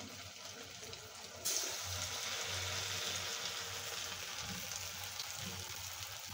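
Hot oil sizzling steadily as noodle pakoras deep-fry, getting louder about a second and a half in.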